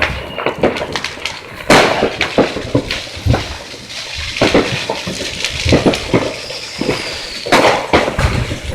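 Fireworks going off: a rapid, irregular series of sharp pops and cracks, with two louder bangs about two seconds in and near the end.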